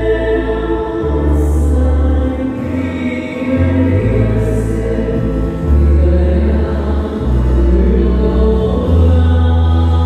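Choir singing a Malayalam devotional hymn with instrumental band backing. Held low bass notes change every second or so.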